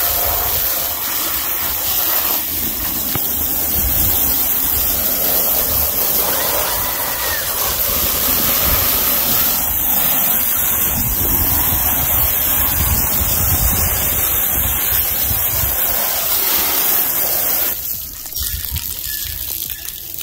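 Jet of water spraying onto muddy rubber floor mats, washing the mud out, a steady rushing hiss that eases about two seconds before the end.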